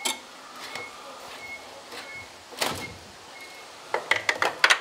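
Sharp knocks from a car windscreen being worked loose from its frame: one at the start, one about two and a half seconds in, then a quick run of cracking knocks near the end as the glass and its bonding break free.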